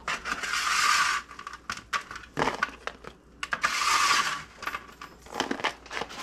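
Fries tipped onto a plate in two pours, each about a second long and three seconds apart, with light clicks and knocks of dishes between them.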